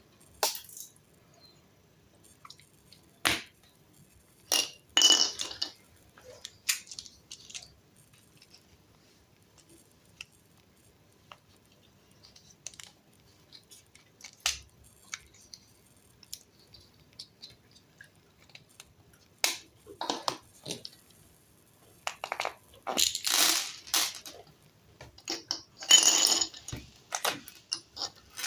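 Intermittent clinks, clicks and rustling from a new bicycle and its packaging being handled, with long quiet gaps between; the busiest stretches come near the start, a little past the middle and near the end.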